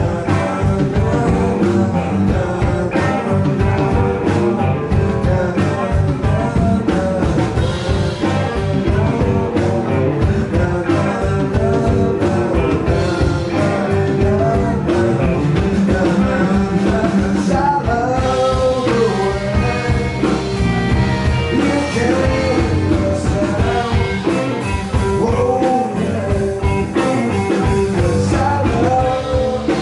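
Live blues-rock band playing: electric guitars, bass guitar and drums, with a lead melody bending up and down over a steady drum beat.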